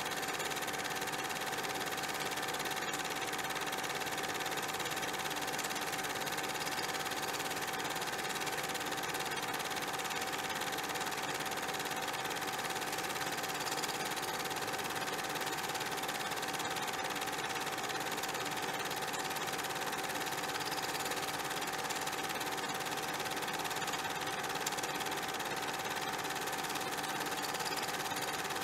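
A steady, unchanging mechanical whir with a constant hum running through it.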